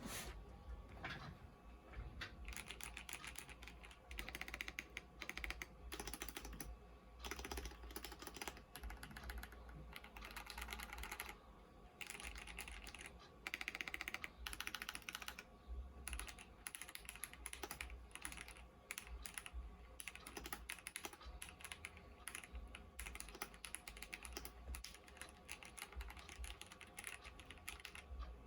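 Typing on a mechanical keyboard fitted with aftermarket keycaps: a continuous, uneven run of key clacks with brief pauses, as in a keycap sound test.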